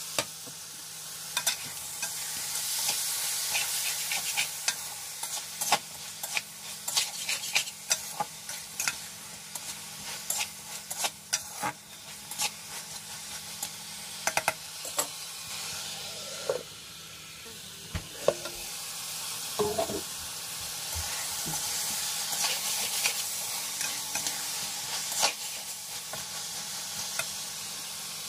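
Potatoes and peas sizzling in oil in a metal pan while a slotted metal spatula stirs them, scraping and clicking against the pan many times over a steady hiss.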